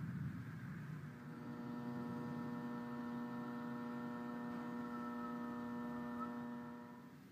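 A steady, even-pitched electrical or machine hum with many overtones sets in about a second in and fades near the end. Before it there is a second of rushing noise.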